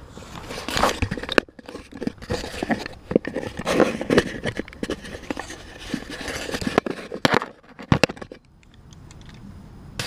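Handling noise from an action camera being moved and repositioned: irregular scraping, rustling and clicking for most of the stretch, easing off near the end with a couple of sharp clicks.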